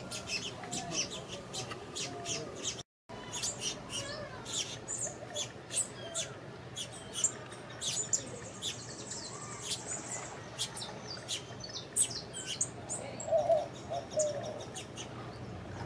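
A busy chorus of many small songbirds chirping, with quick high notes overlapping one another. The sound cuts out completely for a moment about three seconds in, and a louder, lower sound stands out near the end.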